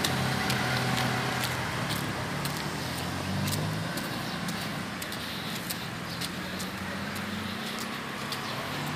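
Road traffic: motor vehicle engines humming steadily, the pitch shifting a little as they go by, with faint scattered ticks over the top.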